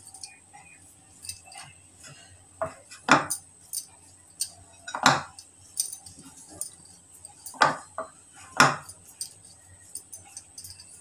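Bangles clinking and sharp knocks of hands against a bowl and a marble rolling board while dough is portioned into balls: scattered light clicks with about five louder clinks a second or two apart.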